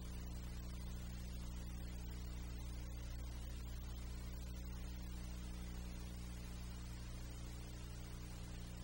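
Steady low electrical hum with a faint hiss, unchanging throughout; no other sound stands out.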